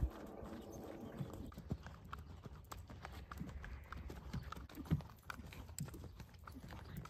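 Hoofbeats of a ridden horse moving on sand arena footing: a continuing run of thuds.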